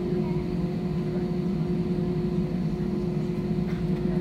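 Steady cabin noise of an Airbus A320-family jet taxiing with its engines at low power, heard from inside the cabin: an even hum with a constant low tone.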